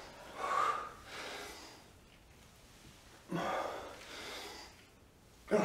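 A person breathing hard from exertion during a set of squats: two pairs of heavy breaths, the first about a second in, the second about three and a half seconds in.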